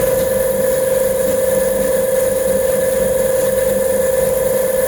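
Bangle-making machine running with a steady, unchanging hum.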